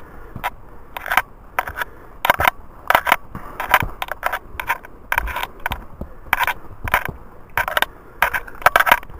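A hiker's footsteps on a forest trail, about two steps a second, steady and even.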